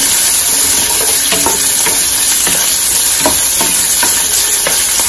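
Diced red onion sizzling steadily in hot oil in a square nonstick pan, sautéed until it browns, while a wooden spatula stirs it with short scrapes and taps against the pan several times.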